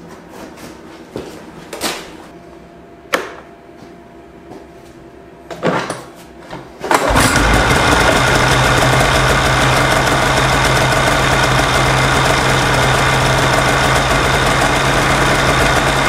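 A few light knocks and clicks, then about seven seconds in the 2018 Polaris AXYS snowmobile's two-stroke twin engine starts and runs steadily at idle.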